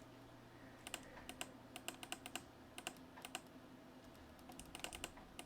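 Faint, irregular clicking of computer keys, starting about a second in and coming faster near the end, over a low steady hum.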